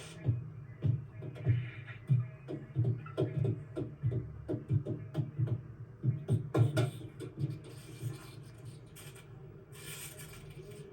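Animated-film sound effects: a quick run of low thumps, each with a short falling tone, about two or three a second, dying away about seven seconds in.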